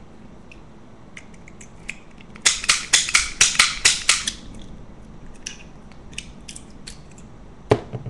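Manual pick gun snapping rapidly in a Master Lock padlock's keyway, about ten sharp clicks in under two seconds as the trigger flicks the needle against the pin stack. Lighter clicks and rattles of the lock follow, then a single knock near the end as the padlock is set down on the desk.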